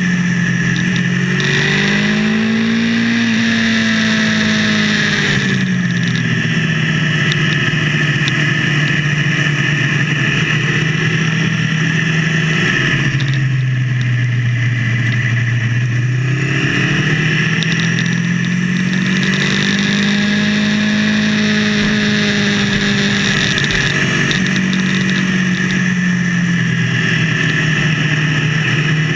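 Motorcycle engine running under way, its pitch rising and falling slowly every few seconds as it speeds up and slows through the curves. The footage plays at 1.5 times speed, which raises the pitch.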